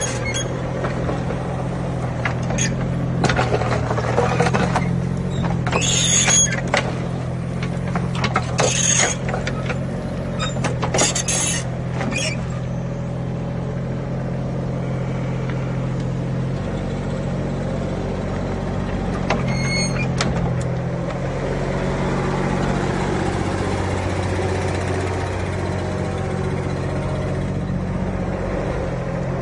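Mini excavator's diesel engine running steadily. Several short, high squeals and clicks come over it in the first twelve seconds, and one more near the twenty-second mark, as the machine works.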